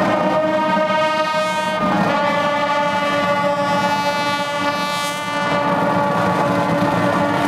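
A large marching band's brass section, trombones close by, playing long held chords, shifting to a new chord about two seconds in.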